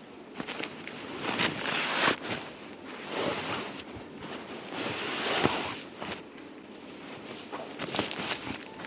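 Rustling and handling noises in several swells, about a second each, with small clicks and knocks between them.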